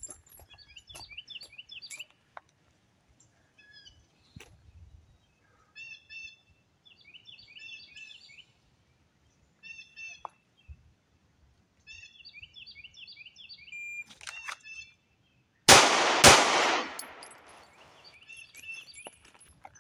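Birds chirping, then two 9mm pistol shots from an AREX Zero 2S about half a second apart near the end, each ringing out and echoing as it fades. The first is the long double-action trigger pull and the second is single action, in a timed two-shot drill.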